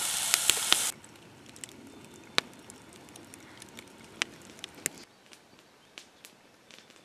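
Steak sizzling in a cast-iron skillet over a campfire for about a second, then a log campfire crackling with sharp scattered pops. Near the end it falls much quieter, with only a few faint ticks.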